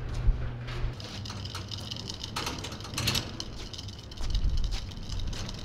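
A garage door opener hums and stops about a second in. Then a small aluminium john boat on its trailer is pulled by hand over concrete, the trailer's tongue jack wheel rolling and the trailer rattling and clanking unevenly.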